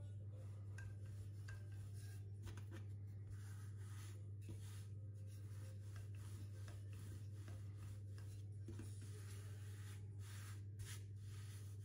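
Wooden rolling pin rolling pizza dough out on a floured wooden board: a soft rubbing with short breaks between strokes, over a steady low hum.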